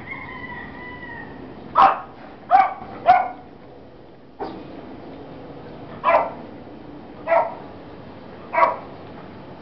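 A dog barking: six single barks, three in quick succession about two seconds in, then three more spaced a second or so apart.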